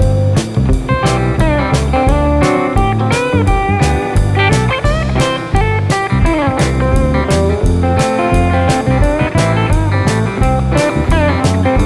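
Background music: blues-rock with electric guitar, its notes bent up and down, over a steady drum beat.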